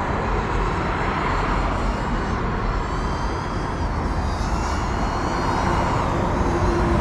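GEPRC CineLog 35 FPV cinewhoop's motors and ducted propellers whining in flight, the pitch sliding up and down with the throttle through the second half, over a steady low rumble.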